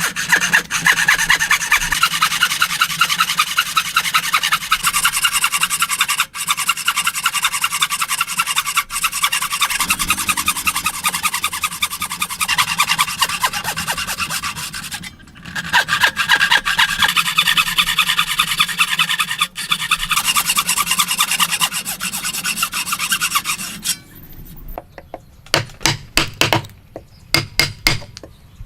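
A hand tool working wood with rapid back-and-forth strokes, sawing or rasping, in two long runs with a short break about halfway. Near the end the strokes give way to a string of sharp knocks.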